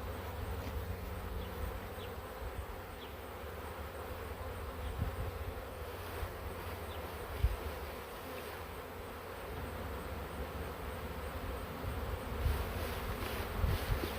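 A honey bee swarm buzzing, a steady dense hum. A single knock sounds about halfway through, and low rumbling grows near the end.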